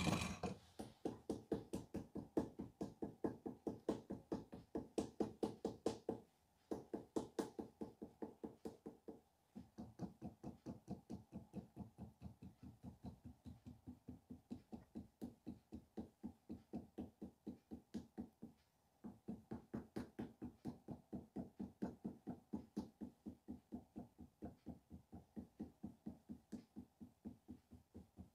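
Rapid, even tapping of a hand-held sculpting tool against the clay head of a figure being shaped, about four to five strikes a second. The tapping comes in four runs, split by short pauses.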